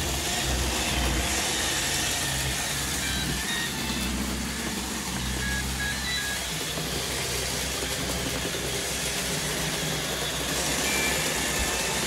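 Shark and iRobot Roomba robot vacuums running: a steady whir of suction fans and brushes over a low hum.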